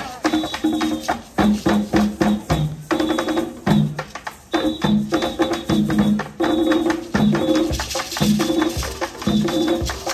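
Ensemble of African hand drums playing a fast, driving rhythm, dense strikes over deep drum notes that step between a few pitches.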